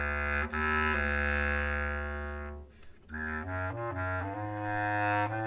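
Flute and clarinet duo playing live: long held notes, a short break about two and a half seconds in, then a passage moving up in steps with the flute playing.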